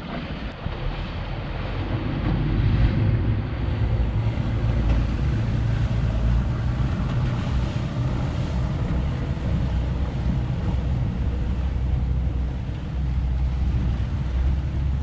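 Boat engine running with a steady low drone, with wind noise on the microphone.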